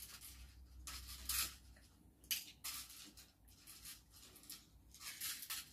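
Wooden chopsticks faintly scraping and clicking in small dishes as tiny beans are picked up one by one, a few short scratchy strokes a second or so apart.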